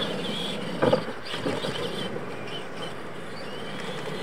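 Electric RC monster trucks running on dirt, their motors giving a thin, wavering whine, with a sharp thump about a second in as a truck lands off a ramp.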